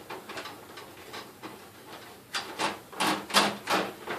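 Screw being driven into a desktop computer's metal case with a screwdriver: a run of sharp clicks and knocks, coming closer together in the second half.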